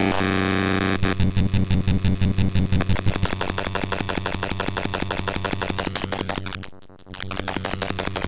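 Drum loop chopped into very short slices by the Beatchop slicer in Reason. It makes a rapid, glitchy stutter of about ten hits a second that thickens into a dense, noisy buzz, drops away briefly near the end, then resumes.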